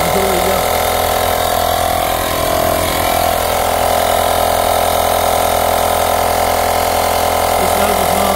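Portable 12-volt tyre inflator running steadily, its small piston compressor pumping air into a car tyre that is low on air from a slow puncture.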